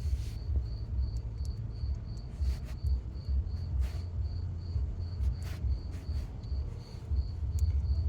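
A cricket chirping steadily, a high tone pulsing about three times a second, over a fluctuating low rumble, with a few faint clicks.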